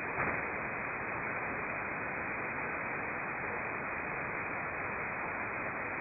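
Steady hiss of static from an HF shortwave receiver in upper-sideband mode, the aeronautical channel idle with no signal on it and no highs above the sideband filter. A brief louder crackle comes just after the start.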